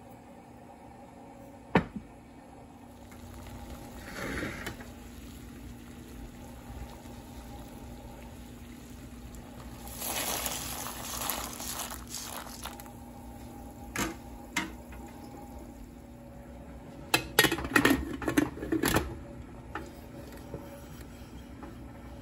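Pot of beans and water boiling on a gas stove, with a few knocks of metal cookware. Near the end comes a quick run of metal clacks as a lid is fitted onto the pot, which looks like a pressure cooker.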